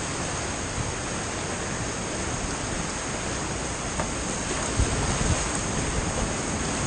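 Rushing whitewater of a creek rapid, heard from a kayak running it, getting a little louder in the second half. A few sharp splashes from paddle strokes come in near the end.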